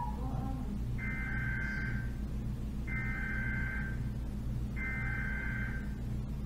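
Emergency Alert System data tones: three bursts of a rapid two-pitch digital signal (SAME), each about a second long and about two seconds apart, over a steady low hum.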